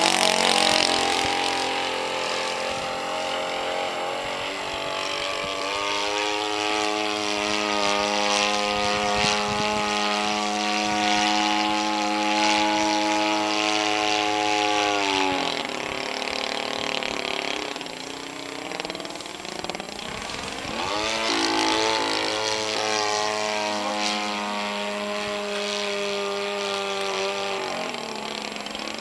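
Small propeller aircraft's piston engine buzzing steadily as it flies past, the pitch sliding down as it passes, about fifteen seconds in and again near the end.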